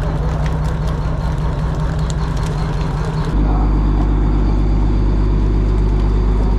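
A fishing boat's engine running with a steady low hum. About three seconds in it switches abruptly to a louder, deeper drone.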